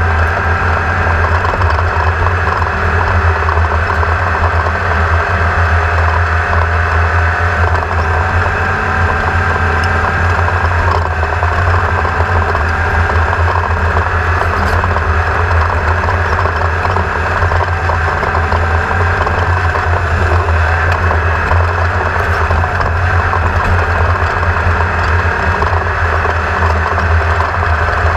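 Boat motor running steadily at an even speed, with a constant deep hum and no change in pitch.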